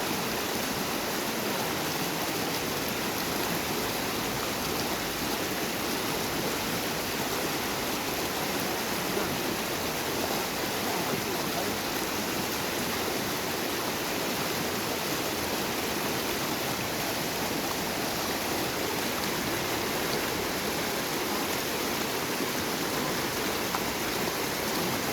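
A small river's water flowing, a steady, unbroken wash of noise.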